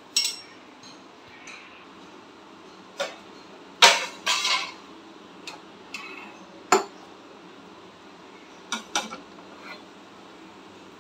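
Steel kitchen utensils clinking and knocking: a spoon and a tea strainer handled against mugs and a pan as tea is about to be strained. About ten separate clinks, scattered, the loudest about four seconds in.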